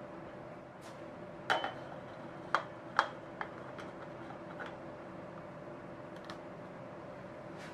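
Metal brownie-pan divider grid being set into a metal baking tray: a handful of sharp metal clinks with a brief ring in the first half, over a steady low hum.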